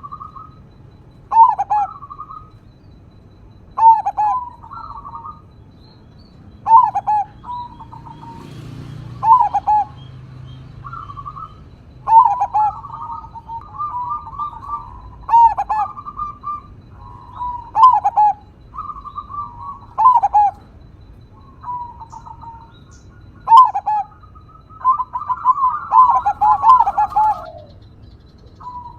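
Crossbred zebra dove (perkutut) cooing: a short, loud, ringing coo phrase repeated every two to three seconds, with phrases coming closer together near the end.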